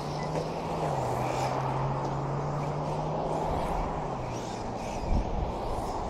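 Radio-controlled race trucks running around a dirt track, heard as faint whines rising and falling over a steady rumble and a low hum. A few thumps come about five seconds in.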